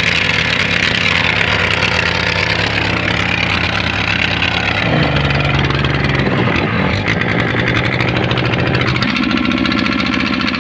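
Boat engine running steadily as the fishing boat moves across open water, with the rush of wake and wind over it. The engine's pitch shifts about halfway through and again near the end.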